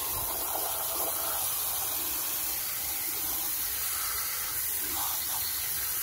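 Steady spray of water from a hand-held spray nozzle, a fine jet washing mud off plastic toys.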